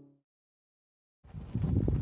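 Background music fading out into dead silence, then, about a second and a quarter in, live outdoor sound with wind buffeting the microphone.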